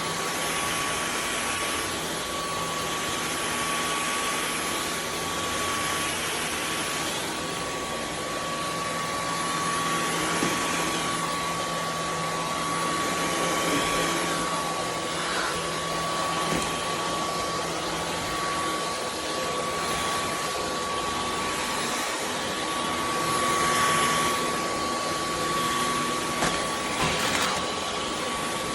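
Dyson V15 Detect cordless stick vacuum running steadily, a rush of air with a thin steady whine riding over it. The loudness swells slightly a few times.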